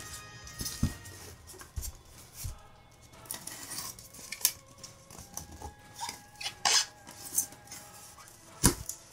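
Hands handling a polystyrene foam shipping box: irregular scrapes, squeaks and clicks as packing tape is slit and peeled off the foam lid, with one sharp knock near the end.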